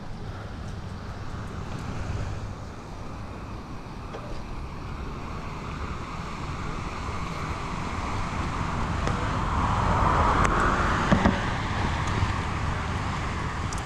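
Wind rushing over a bicycle-mounted GoPro's microphone while riding, with a car passing that swells up and is loudest about ten seconds in, followed by a couple of sharp clicks.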